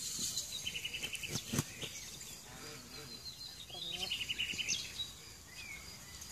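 Outdoor bird sounds: a small bird's rapid high trill, given twice, with a short low chicken call about four seconds in and a couple of soft knocks about a second and a half in.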